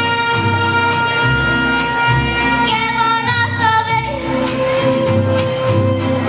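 A young girl singing long held notes with a mariachi band, the pitch stepping down about four seconds in. Under her voice run a pulsing guitarrón bass and strummed rhythm guitars.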